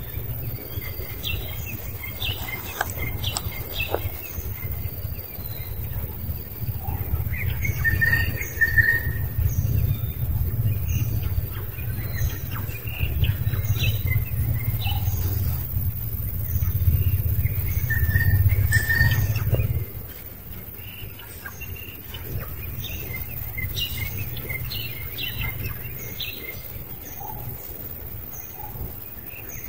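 Wild birds chirping and calling, with many short high chirps and a repeated clear whistled note, over a low steady rumble that cuts off about two-thirds of the way through.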